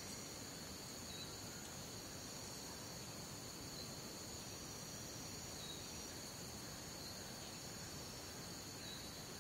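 Rainforest night ambience: a steady chorus of night insects trilling at two high pitches without a break, over a faint background hiss.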